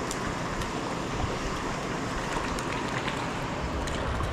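Steady rushing of a small stream flowing over stones, with a few faint clicks.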